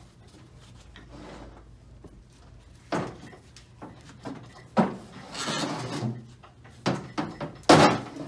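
A heavy CVT transmission case being turned over and shifted on a workbench: a few hard knocks and thumps of the metal case against the bench, with scraping as it slides, the loudest knock near the end.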